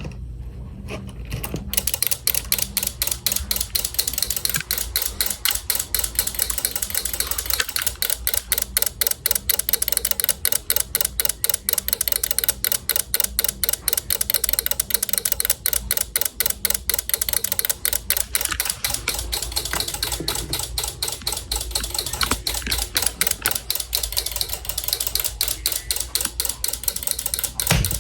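Rapid, even mechanical clicking from the fire alarm system under test, several clicks a second, starting about two seconds in: the system switching in alarm with its horns off.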